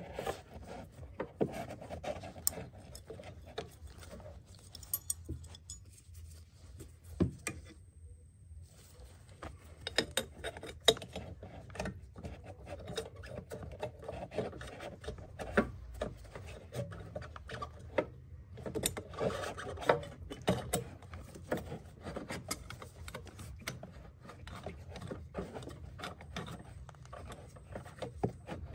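Cloth rag rustling and rubbing against engine-bay parts while a hand works down among the hoses, with scattered small clicks and knocks. The noise comes and goes irregularly, with a brief pause about eight seconds in.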